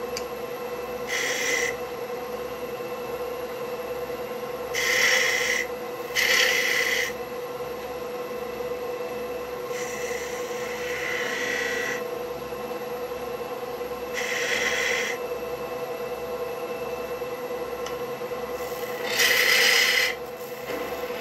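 Wood lathe running with a steady hum while a turning tool takes peeling cuts on a spinning black walnut spindle, heard as about six separate hissing cuts, each lasting up to a couple of seconds.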